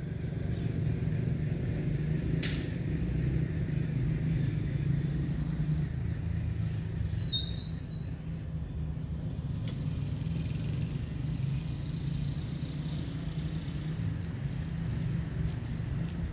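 Steady low rumble of vehicle traffic, with a bird repeating a short, high, falling call roughly every second and a half. A single sharp click sounds about two and a half seconds in.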